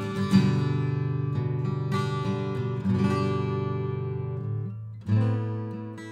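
1977 Alvarez Model 5014 00-size acoustic guitar being played in chords, the notes ringing on between attacks. They fade away and a new chord is struck about five seconds in. It is recorded close with an active ribbon microphone.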